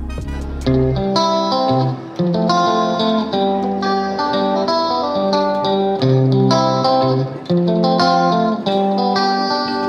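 Background music: a melody of plucked guitar notes with a steady bass line.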